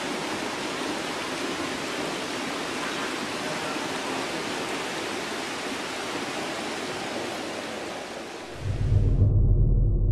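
Trailer sound design: a steady rushing hiss, then about nine seconds in a loud deep low rumble sets in and the hiss cuts off.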